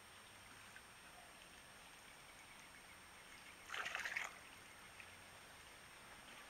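Green liquid poured from a plastic jar into the water of a pond filter barrel, a short splashing pour of about half a second a little under four seconds in, over a faint steady trickle of circulating water.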